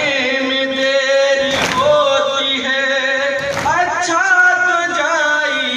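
A group of men chanting a noha, a Shia mourning lament, in unison with long drawn-out sung lines. Heavy slaps of hands striking chests (matam) land about every two seconds in time with the chant.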